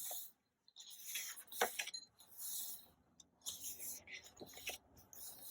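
Paper rustling as glossy photobook pages are handled and turned: a series of short, soft swishes about a second apart.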